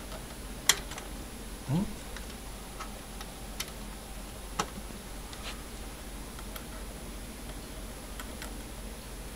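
Scattered light clicks of a meter probe tip tapping against the metal pins of a power distribution board, the loudest about a second in, with a brief rising sound near two seconds in.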